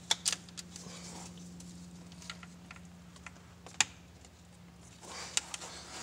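Sharp plastic clicks as gloved fingers press and work the locking tabs of the alternator's wiring connector, a few just after the start and a louder single click near four seconds in. A steady low hum runs underneath.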